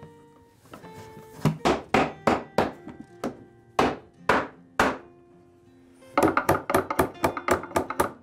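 Wooden mallet knocking a dovetail joint home, sharp knocks roughly half a second apart, then a quick run of lighter hammer taps near the end as a peg is driven in. Background music plays underneath.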